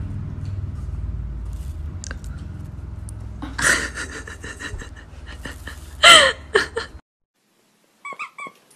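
Steady low rumble with scattered clicks, broken by two short cries about three and a half and six seconds in, the second falling in pitch; it cuts off abruptly about seven seconds in.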